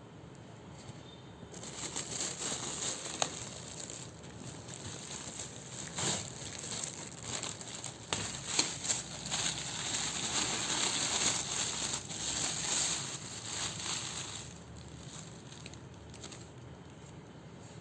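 Packaging being handled and opened: crinkling and rustling with occasional sharp clicks, for about thirteen seconds, then dying down near the end.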